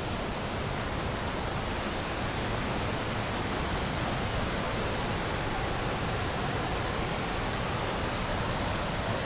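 Steady rushing of creek water running over rocks.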